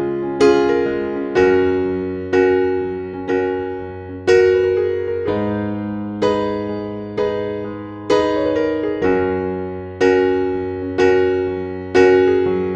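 Slow, gentle piano background music: a note or chord struck about once a second, each one fading away, over held low bass notes.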